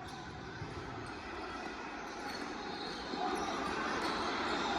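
Basketball game noise in a gym: a ball bouncing on the court over a steady hubbub of the hall, which grows louder toward the end.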